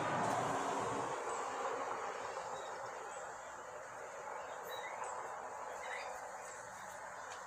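Outdoor ambience of a steady high insect hum with a few short bird chirps. A broad rushing noise fades out about a second in.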